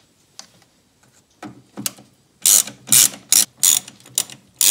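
Ratchet clicking in short back-and-forth strokes, about three a second from about halfway in, as a T20 Torx bit backs out the screws of a GM wiper motor's circuit-board cover; a few faint ticks before that.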